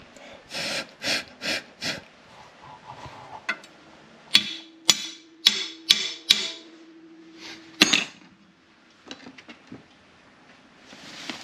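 Slag being knocked off a fresh 6013 stick weld with a metal tool: a few scraping strokes, then about six sharp metal-on-metal taps that leave the steel ringing.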